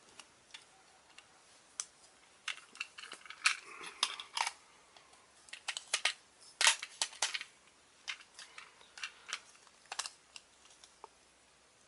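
Irregular plastic clicks, scrapes and rattles as a grip support is pushed onto a plastic Beyblade launcher and twisted until it locks in place.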